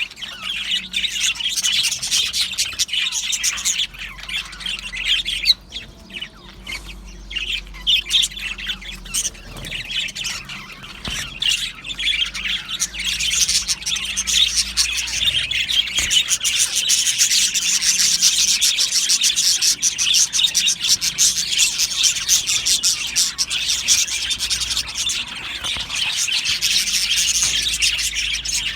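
A flock of budgerigars chattering and chirping in a dense, continuous warble. It thins out for a few seconds early on, then fills back in and stays full.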